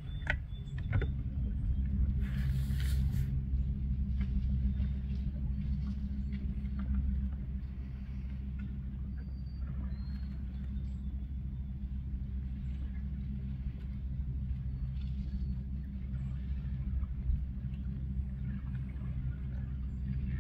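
Boat engine running steadily at low speed, a low even rumble with a constant hum.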